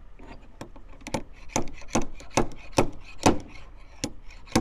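Dent-pulling tool being worked on a car body panel: a steady run of sharp knocks, about two to three a second, getting louder about a second in.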